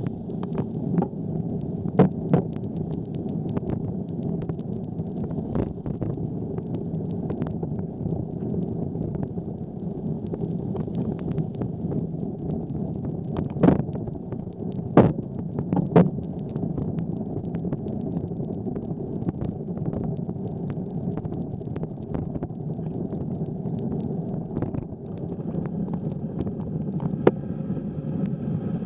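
Steady wind rush and road noise of a bicycle ridden over wet pavement in light rain, dotted with sharp clicks and knocks. The loudest knocks come about two seconds in, three in quick succession around the middle, and one more near the end.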